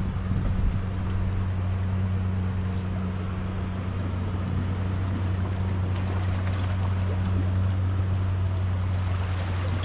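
Boat engine running with a steady low drone that holds one pitch throughout, over a wash of wind and surf.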